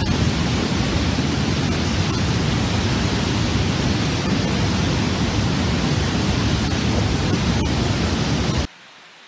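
Muddy floodwater torrent rushing down a steep channel: a loud, steady wash of water noise that cuts off abruptly about eight and a half seconds in, leaving only a faint hiss.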